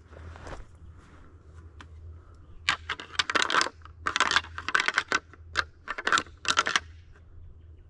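Deer antlers rattled together as a call to draw in a rutting buck: about five short bursts of clattering clicks over some four seconds, starting about three seconds in.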